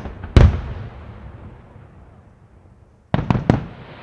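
Aerial firework shells bursting: one loud bang about half a second in that fades away slowly as it echoes, then three quick bangs in close succession near the end.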